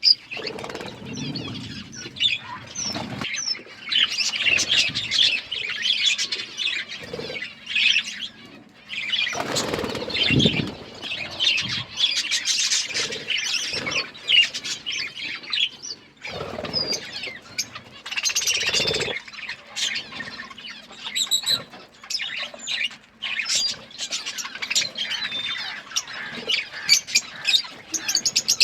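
A group of budgerigars chirping and chattering continuously in quick, high warbles, with louder stretches of fluttering and rustling noise now and then.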